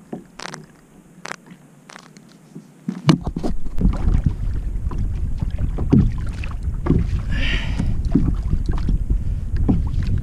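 Wind buffeting the microphone at sea, a steady low rumble that starts suddenly about three seconds in, with scattered light knocks and clicks throughout; the first three seconds are quieter, holding only a few sharp clicks.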